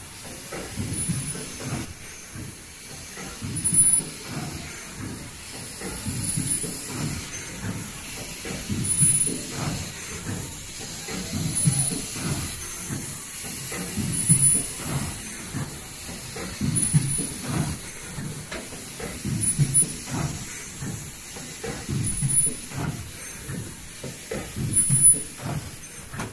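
Automatic KN95 mask production line running, its sound swelling and fading in a regular cycle about every second and a half, with faint high-pitched tones repeating on the same beat.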